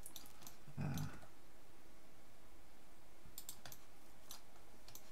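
Scattered sharp clicks of a computer mouse and keyboard keys working software: a few near the start, a quick cluster a little past three seconds in, and a couple more toward the end. A brief soft low thump sounds about a second in.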